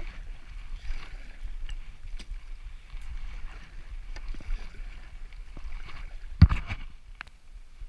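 Kayak paddle strokes dipping and splashing in calm water, over a low steady rumble of wind on the microphone. A single sharp knock, the loudest sound, comes late on.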